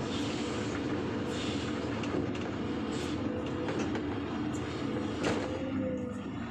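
Heavy machinery running steadily with a droning hum, and a few sharp clanks or knocks, the loudest about five seconds in.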